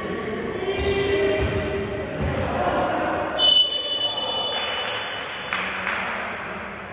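A basketball bounces on a gym floor amid crowd voices. About halfway through, a shrill referee's whistle blows once, for about a second and a half.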